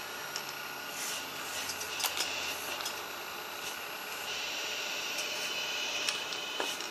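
Electric hydraulic pump of a 1:12 scale RC hydraulic excavator running with a steady high whine as the boom, arm and bucket move, with scattered sharp clicks as it works.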